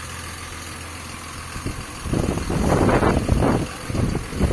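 A vehicle engine idling as a steady low hum; about two seconds in, loud rubbing and scraping from the phone's microphone brushing against clothing covers it.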